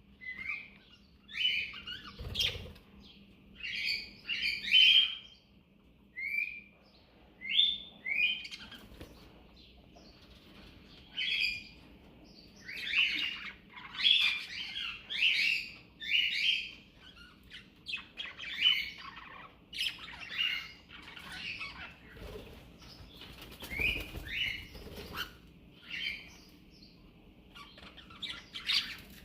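Small pet parrot chirping: a long run of short, bright chirps, one every second or so, with a couple of brief pauses.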